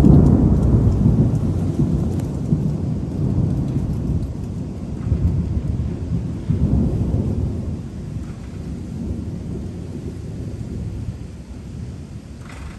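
Long rolling thunder rumble, loudest at the start, swelling once more about halfway through, then fading away slowly.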